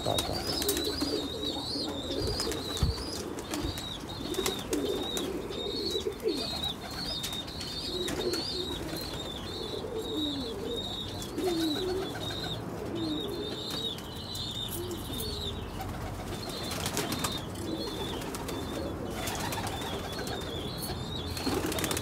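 Domestic pigeons cooing in low, repeated calls, with a small bird's high chirping repeating rapidly over them for most of the time.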